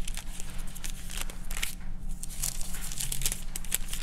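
Thin Bible pages rustling and crinkling as they are leafed through in quick, irregular flurries, over a steady low hum.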